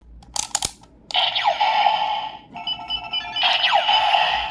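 A few sharp plastic clicks, then a Kamen Rider Zi-O toy transformation belt plays its electronic sound effects: loud sweeping whooshes that rise and fall, with repeated electronic beeps and tones.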